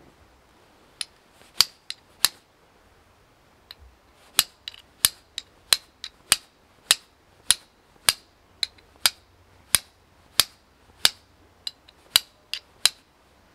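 Flint struck with a steel fire striker: a run of about two dozen sharp clicking strikes, a few scattered at first, then steady at roughly two a second.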